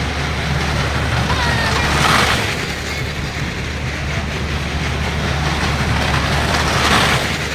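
Motor engines running with a steady low hum over crowd noise, swelling louder twice, about two seconds in and near the end.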